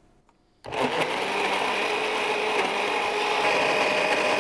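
Electric countertop blender switched on about a second in and running with a steady whine, blending a thick batter of cheddar, eggs, cream and torn bread until smooth.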